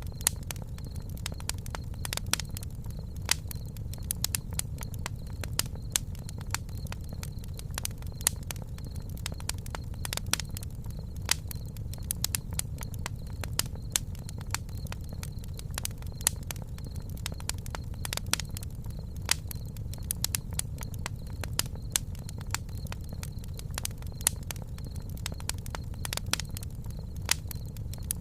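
Campfire burning, with irregular crackles and pops several times a second over a steady low rumble.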